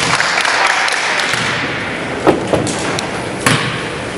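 A basketball bounced on a hardwood gym floor, three sharp thuds in the second half, with crowd chatter in the gym, loudest near the start.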